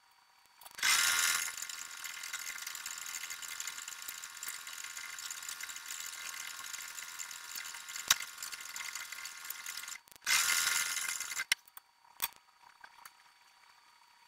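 Sewing machine stitching, heard sped up so it runs high and fast. Two louder surges come about a second in and near the end, with a sharp click in between. It stops near the end, leaving a few clicks.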